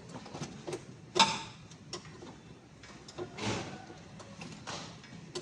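Metal workshop clatter: scattered light clicks and knocks of tools and parts being handled, with one sharp ringing clank a little over a second in and two longer rasping sounds later on.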